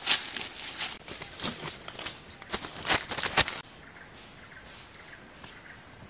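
Footsteps through dry leaf litter, an irregular run of crackling steps. About three and a half seconds in the sound cuts off abruptly to quieter ambience with a steady high-pitched whine and a few faint steps.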